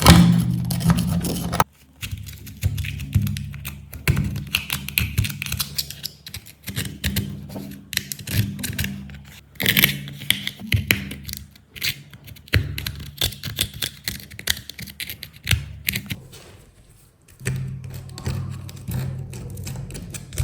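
Background music with many light, irregular taps and clicks of small tools working on a phone's parts.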